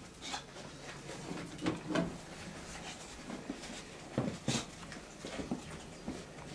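Scattered soft rustles and taps, about half a dozen short ones, from a green tree monitor clambering over cork bark and plant leaves.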